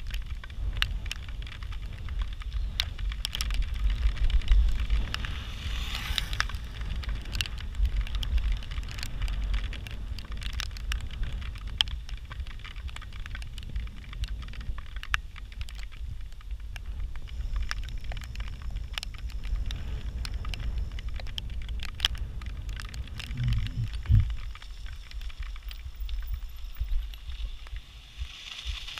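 Riding noise from a bicycle: wind rumbling on the microphone under a constant crackle of sharp ticks and rattles from the bike on the road, with one louder low thud about five seconds before the end.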